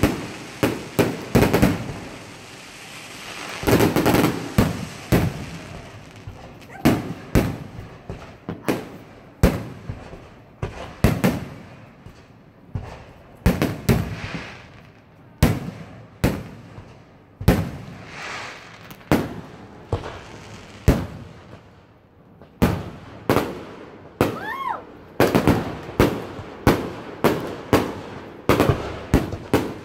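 Aerial fireworks display: an uneven series of sharp shell bursts, often several a second, with a few stretches of dense crackling.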